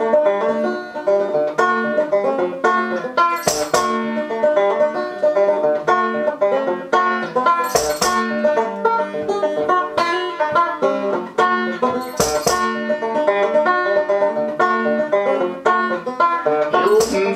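Banjo played solo: a brisk picked instrumental intro of quick plucked notes over a steady ringing low note, with a sharp accent about every four seconds.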